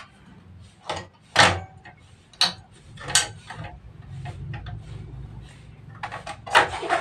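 Butane gas canister being fitted into a portable cassette gas stove: a handful of separate metal clicks and clunks, then a quick cluster of them near the end as the can is seated in its compartment.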